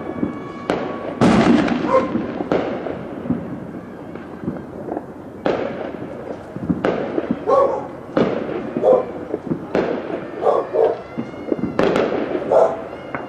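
Fireworks and firecrackers going off: a dozen or so sharp bangs at irregular intervals, with a dog barking between them.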